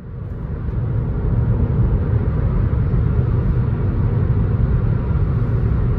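Steady low rumble of a moving vehicle, swelling over the first second and then holding steady.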